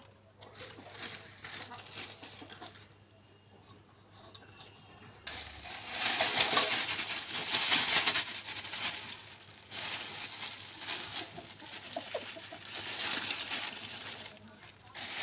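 Black plastic bag rustling and crinkling as a catch of small, freshly caught fish is shaken out of it into a steel bowl. The rustling starts about five seconds in and is loudest for the next few seconds, then comes again near the end.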